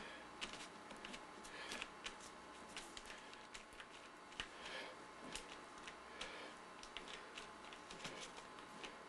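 Fingertips dabbing and smearing wet paint on a canvas: faint, irregular soft taps and short rustly smears, a few a second, over a faint steady hum.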